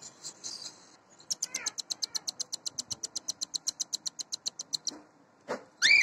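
Cockatiel chicks begging for food: a fast, even run of high, buzzy pulses, about eight a second, lasting about three and a half seconds, typical of chicks being fed by a parent. Near the end comes a louder rising chirp from a cockatiel.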